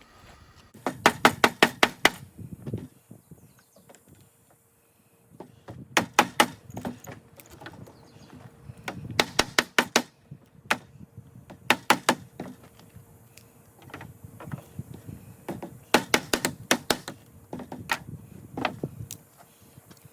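About six bursts of rapid, sharp knocks, five or six strikes to a burst, spaced a few seconds apart: a knife being batoned into a shortleaf pine gall to split it.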